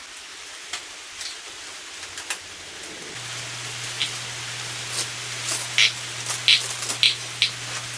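Steady hiss of rain heard from inside a shed, with scattered sharp taps and clicks that grow louder and more frequent in the second half. A faint low hum starts about three seconds in.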